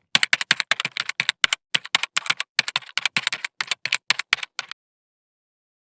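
Typing sound effect: a rapid, even run of key clicks, about five or six a second, that cuts off abruptly about three-quarters of the way through.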